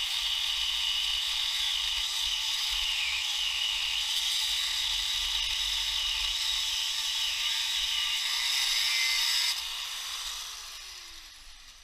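Handheld angle grinder with a cut-off disc cutting into a steel bolt on a torque converter's flex plate: a steady, high-pitched grinding. About nine and a half seconds in the cut stops suddenly and the grinder's motor winds down with a falling whine.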